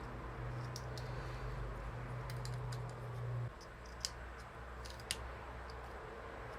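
Small sharp plastic clicks and ticks as the latches holding a Numark NS6II fader are worked loose with pliers; the loudest come about four and five seconds in. A low steady hum runs underneath and stops about three and a half seconds in.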